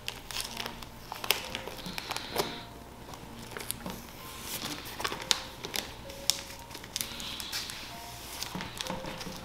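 Plastic comic sleeve crinkling and the cardboard backing board rustling as a comic is slid out by hand: a stream of light, irregular clicks and crackles.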